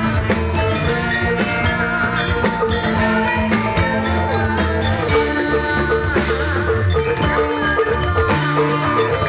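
Ensemble music of tuned mallet percussion over drums, a dense, continuous texture of ringing pitched notes.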